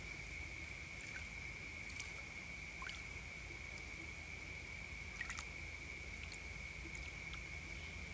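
Faint outdoor ambience: a steady high-pitched drone with short chirps and clicks scattered through it, the loudest cluster about five seconds in.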